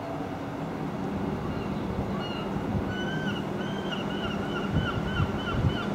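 Eurostar Class 373 electric train rolling slowly over curved points, a low rumble that grows gently louder. From about two seconds in, a wavering high squeal comes and goes in short arcs, typical of wheel flanges on the tight curves, with a few heavier thumps near the end.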